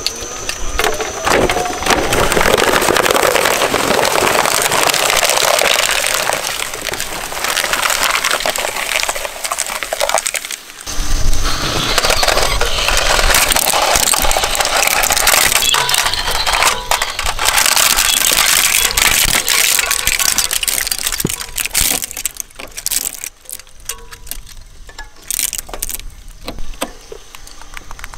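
Shredder crunching up plastic toys: a dense, loud run of cracks and snaps as the plastic breaks apart, with a short break about ten seconds in. Near the end the crackling thins out to scattered cracks.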